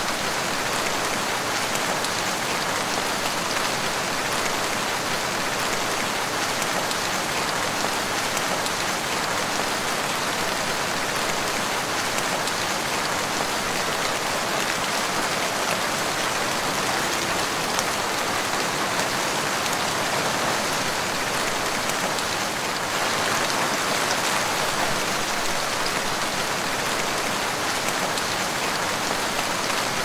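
Heavy rain falling steadily on the leaves of forest trees: a dense, even hiss that holds at one level throughout.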